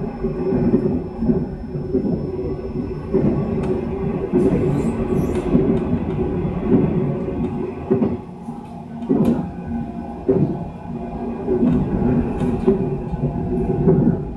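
Taiwan Railways EMU700 electric multiple unit running at speed, heard from inside the car: a steady rumble of wheels and traction gear. A faint high whine fades out about four seconds in, and there are a few sharp knocks.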